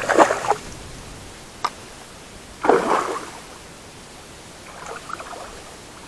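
A hooked small tararira (trahira) thrashing and splashing at the water's surface as it is reeled in. The splashing comes in bursts about every two seconds, the last ones weaker, with a single sharp click between the first two.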